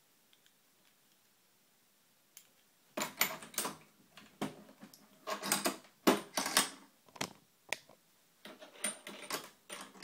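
Brass euro cylinder lock and metal lockpicking tools being handled: irregular bursts of small metallic clicks and rattles, starting about three seconds in after a quiet start.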